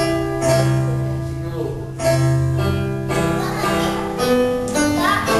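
Electronic keyboard playing a song accompaniment, held chords over a low bass note that change every couple of seconds, with girls' voices singing along.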